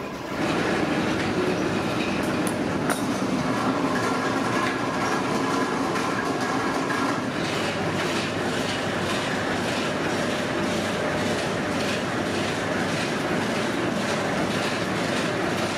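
Rubber extruder machine running steadily, a dense mechanical rattle with a faint regular clatter, as it pushes silicone rubber strip out through its die.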